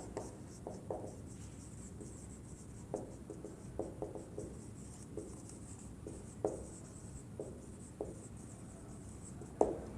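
Writing by hand: faint, irregular short scratching strokes with brief pauses between them.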